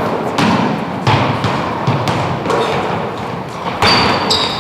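A basketball bouncing and thudding irregularly on a gym floor, each hit ringing in the hall. Near the end there are a few short high squeaks, typical of sneakers on the court.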